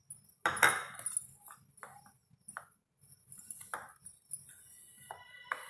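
Hands mixing dough in a steel plate: scattered knocks and clinks against the metal, some ringing briefly. Faint background music comes in about two-thirds of the way through.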